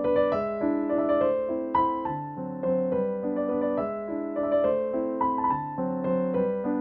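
Background piano music: a melody of evenly paced notes over held lower chords.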